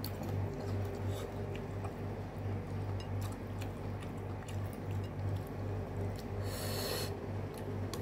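A person eating noodles with chopsticks: chewing and soft wet mouth clicks, with one brief noisy slurping intake of breath near the end, over a steady low hum.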